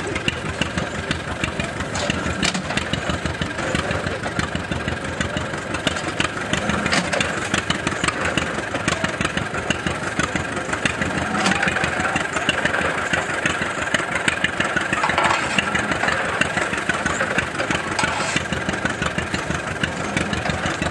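Antique John Deere two-cylinder tractor engine running steadily under belt load, driving a stationary hay press by a long flat belt.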